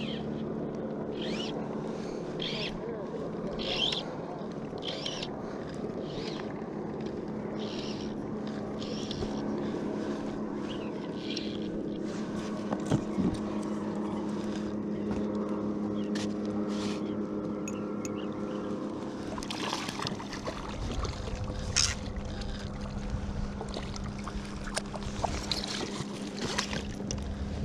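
Fly line being stripped in by hand while playing a cutthroat trout, a short zip every half second to second, over a steady low hum. About two-thirds of the way through come a low rumbling splash and a sharp knock as the trout is brought to the landing net.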